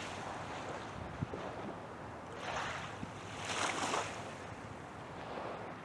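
Wind blowing across the microphone in gusts, with two swells of hiss near the middle.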